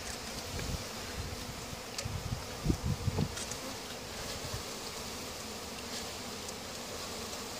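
Honey bees buzzing around an open hive box, a steady hum of many bees freshly shaken in from a package and agitated. A few soft low bumps near three seconds in.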